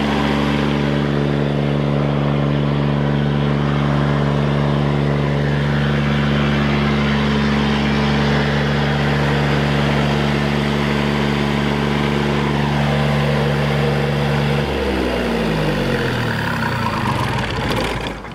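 Cummins Onan 7.5MDKBJ marine diesel generator running at a steady speed; about 15 seconds in it is shut off, its pitch falls as the engine winds down, and it stops near the end.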